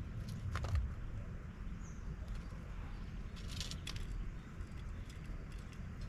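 Light scattered clicks and taps of birds pecking and shifting sunflower seeds on a metal feeder tray, with a cluster of them a little past the middle, over a steady low rumble of distant city noise. A faint, brief bird chirp comes about two seconds in.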